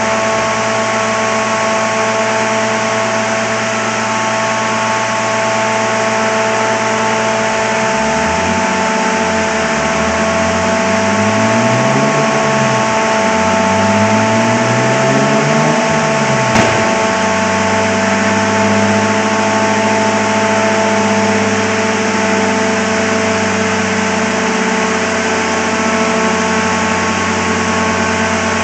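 Nissan R32 Skyline GTS-t's RB20DET turbocharged straight-six running on a rolling road: it ticks over steadily, is revved up and let fall back about four times in quick succession partway through, then holds a steady note. A steady hiss and hum sits underneath.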